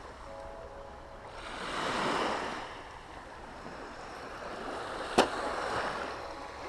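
Small waves washing onto a shingle beach, swelling about two seconds in and again near the end, with one sharp click about five seconds in.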